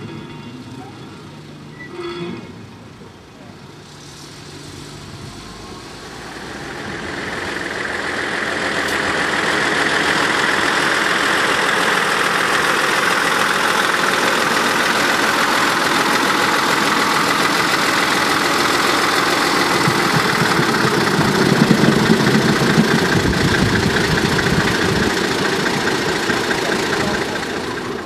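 A train of passenger coaches rolling past close by, the running noise building up about six seconds in and staying loud until it eases off near the end.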